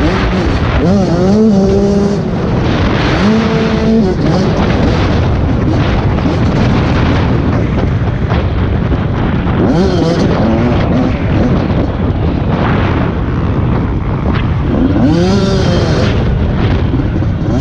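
Honda CRF80 pit bike's small four-stroke single-cylinder engine running hard, its pitch rising and falling repeatedly as the throttle is worked around the track, under heavy wind rush on the camera.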